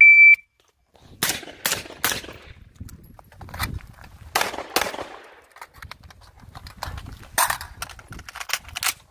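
Electronic shot timer gives one short beep. About a second later a string of gunshots follows in quick groups of two to four, fired from a short carbine and a pistol during a timed drill.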